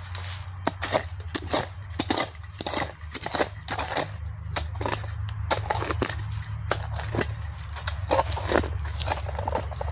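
Small hand shovel digging into dry, rooty soil: repeated irregular stabs, scrapes and crunches as the blade cuts in and levers earth out.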